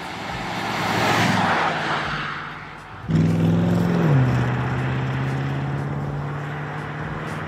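Porsche Panamera Turbo S's 4.0-litre twin-turbo V8 going by: a rising rush that peaks about a second in and fades. It then jumps abruptly to a loud, steady engine note, whose pitch drops once about four seconds in and holds lower as the car pulls away.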